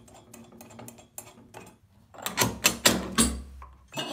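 Chrome metal sink-console parts, leg tubes and threaded rods, clinking as they are handled. A run of light quick clicks for about two seconds, then several louder clanks with a dull thump about three seconds in.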